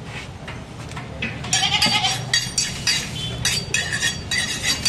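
A goat bleating about a second and a half in, followed by a quick, regular run of sharp knocks, about three a second.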